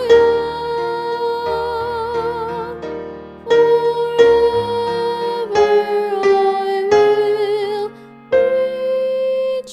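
Hymn music: a slow melody of held high notes, several with vibrato, over a soft piano-like accompaniment of lower chords.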